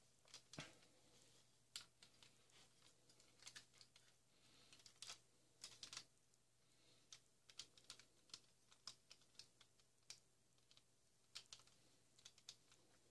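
Faint, irregular clicks and taps of plastic Bionicle figure parts being handled, turned and snapped into place.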